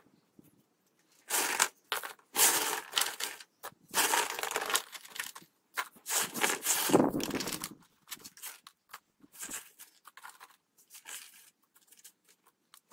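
Small gravel stones poured by hand into a cardboard box, in several bursts of rattling and crunching, followed by fainter scattered clicks as single pebbles are picked up and dropped in.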